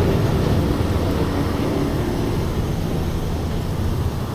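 Steady low rumble of motorbike and car engines in street traffic, easing slightly toward the end.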